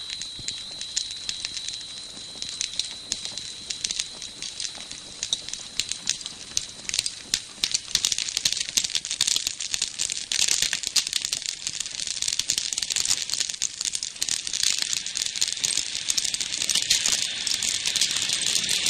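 Open fire of dry brush and twigs crackling, with a dense run of sharp pops that grows thicker and louder about eight seconds in.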